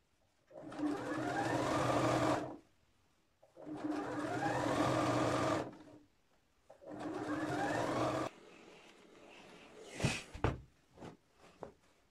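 Electric sewing machine stitching a double-folded hem in three runs of about two seconds each, separated by short pauses. At the start of each run the motor's whine rises in pitch as it speeds up, then holds steady. Near the end come a few knocks and handling clicks.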